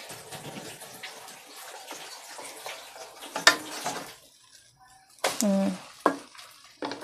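Egg-dipped bread slices sizzling softly in a little oil in a non-stick wok, with a wooden spatula scraping as a slice is turned about three and a half seconds in. The sizzle is fainter after that, and a brief voice sounds about five seconds in.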